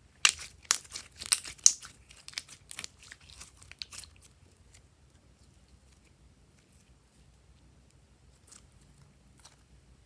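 Slime being squeezed and pressed by hand, giving a quick run of crisp crackles and pops for about four seconds, then two faint pops near the end.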